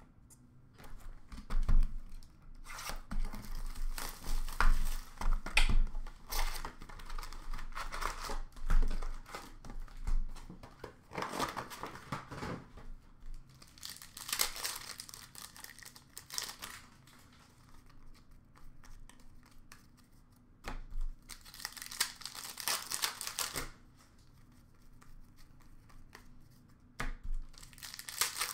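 Upper Deck hockey card packs being torn open and their wrappers crinkled: several separate spells of tearing and rustling, with quieter gaps of card handling between.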